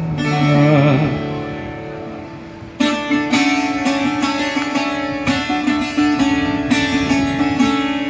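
Viola caipira, the Brazilian ten-string folk guitar, with a man's voice: a held sung note with vibrato fades out in the first second, the strings ring down, then nearly three seconds in a fast plucked instrumental passage starts with a repeated note running under it.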